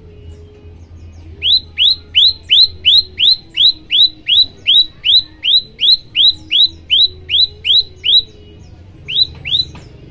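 Prenjak lumut singing: a fast run of about twenty loud, sharp, identical notes, about three a second, then a short pause and two more notes near the end.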